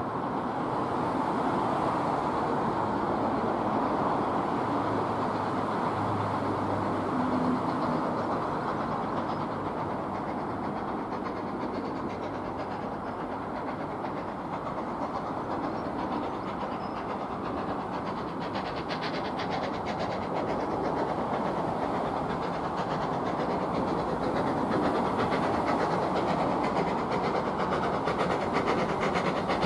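A steam locomotive approaching along the line over steady background noise. Its sound builds over the last ten seconds or so into fast, closely spaced clicking.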